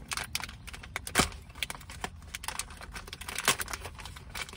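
Mochi snack packaging being opened and handled: irregular crinkles and clicks, with two sharper snaps, one about a second in and one past three seconds in.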